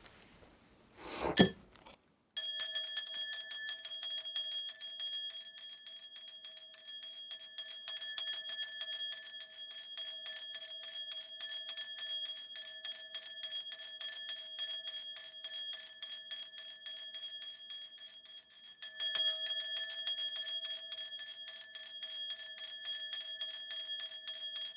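Korean shaman's ritual bells, a cluster of small bells on a handle, shaken rapidly and continuously. The ringing starts about two seconds in, eases briefly a little after eighteen seconds, then picks up again.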